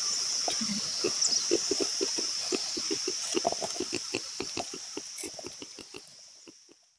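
Fingers dabbing and smearing wet black paint on a rough cement flowerpot: a quick run of soft, sticky taps over a steady high whine. It fades away near the end.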